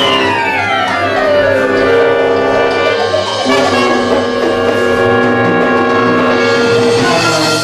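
A small live orchestra plays operetta music: a gliding line that falls over about the first two seconds, then sustained chords for the rest.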